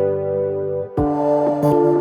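Background music: sustained keyboard chords, changing to a new chord about a second in.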